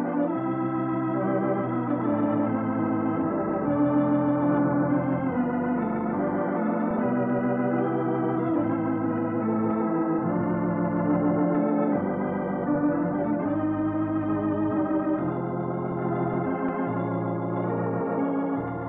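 Organ music from an old radio transcription: held chords that change every second or two, with no treble above the middle of the range.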